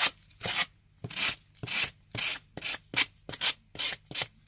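Sanding block rubbed in quick repeated strokes, about two a second, along the edge of heavyweight paper glued to thick greyboard, abrading the overhanging paper away. The sandpaper on the block is worn but still cutting.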